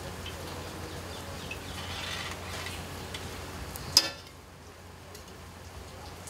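Jalebis deep-frying in a wide kadai of hot oil, a steady sizzle over a low hum. A single sharp click about four seconds in, after which the sizzle is quieter.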